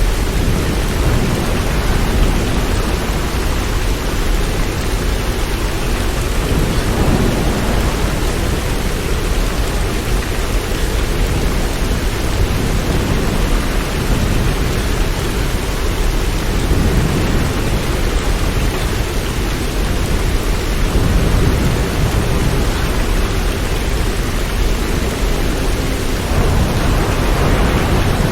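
Steady rain, an even hiss, over a deep low rumble that swells and eases every few seconds.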